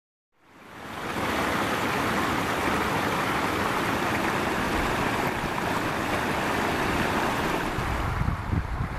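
Shallow woodland stream rushing and splashing over ice-coated branches and a small debris dam, a steady watery rush that fades in within the first second. Near the end, low gusts of wind buffet the microphone.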